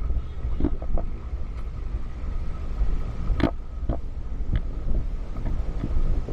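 Vehicle driving slowly over a rough, rocky off-road track: a steady low rumble with wind on the microphone, broken by sharp knocks and rattles as it jolts over bumps. The loudest jolt comes about three and a half seconds in.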